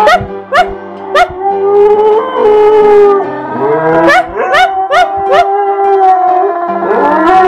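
Siberian husky howling: long held howls broken by short yelps that rise in pitch, three near the start and four more around four to five seconds in.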